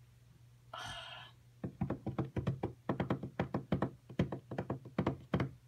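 A short soft puff of noise, then a quick run of light taps on a hard surface, about five a second for some four seconds.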